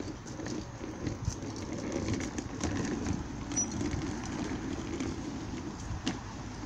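Small hard wheels of a folding crate trolley rolling over a concrete footpath as it is pulled along: a steady rolling rumble with many small rattling clicks.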